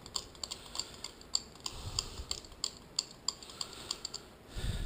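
Quick, irregular light clicks and scrapes of a screwdriver tip poking at a broken-off steel bolt down a hole in an aluminium cylinder head, with a dull knock near the end.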